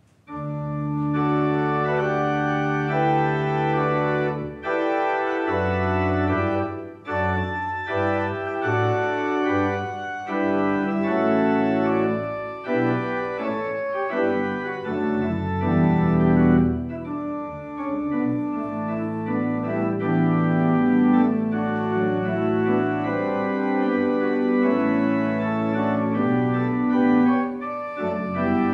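Allen church organ playing the wedding processional. It opens on a long held chord, then moves into a melody over a bass line.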